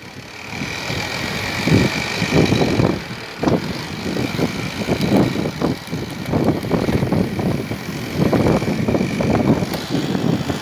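Electric bike driven by a converted 2 kW washing-machine BLDC motor under way: a steady high-pitched motor whine over an uneven, gusty low rumble of riding noise.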